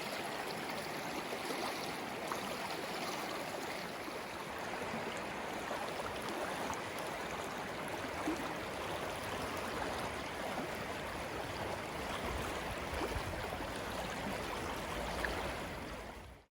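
Steady rush of flowing water, fading out at the very end.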